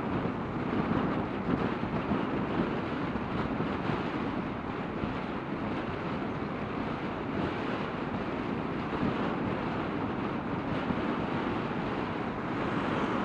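Steady low rumble of wind blowing across the microphone, wavering in loudness without a break.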